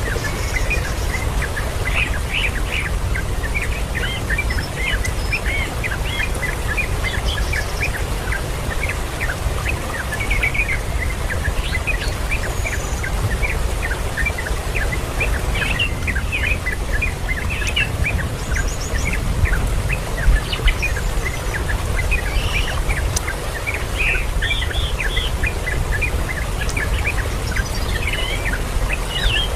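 Birds chirping with many short, repeated calls, over a steady low rumble of background noise. A couple of brief louder sounds occur about twenty seconds in.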